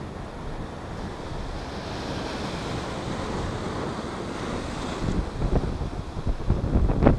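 Atlantic surf breaking and washing over the rocks, swelling to a crash and hiss of foam about two to five seconds in. Then gusts of strong wind buffet the microphone with low rumbles and thumps near the end.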